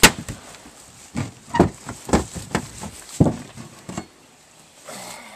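An axe strikes an old refrigerator's metal body once, a sharp loud impact at the start. Several short, grunting vocal sounds follow over the next few seconds.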